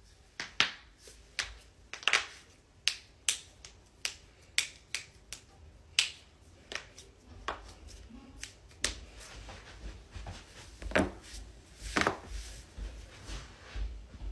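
Sharp cracks and pops of spinal and neck joints during chiropractic adjustments, about two dozen irregular clicks of varying loudness. The loudest come about half a second in, about two seconds in and about twelve seconds in.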